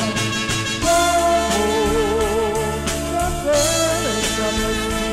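Ballad backing track playing an instrumental passage: a lead melody in long held notes with vibrato over a sustained accompaniment.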